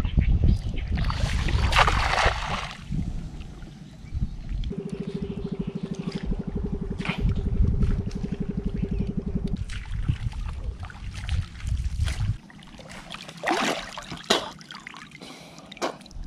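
Water splashing and sloshing around a person wading and ducking in chest-deep water, with a bigger splash about a second in and short splashes near the end. A steady low hum with a fast pulse runs through the middle few seconds.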